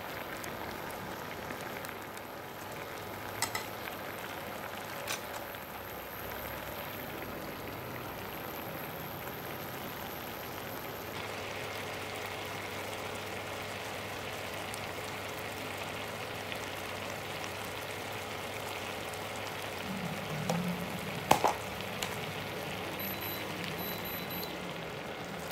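Spicy tteokbokki and instant-noodle stew simmering in a pan, a steady bubbling and sizzling. A few brief clicks, with a louder clatter of knocks about three-quarters of the way through.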